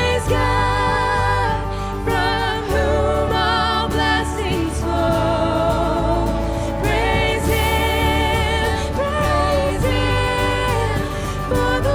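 Live church worship band music with singing: sung melody lines over a steady bass.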